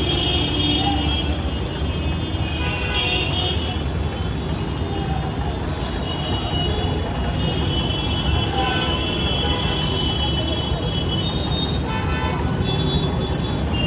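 Busy road traffic with vehicle horns honking again and again, in spells of about a second, over a steady rumble of engines.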